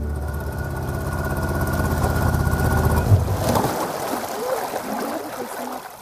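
Boat motor running steadily, then cutting out with a short thump about three seconds in, leaving the sound of water against the inflatable boat's hull.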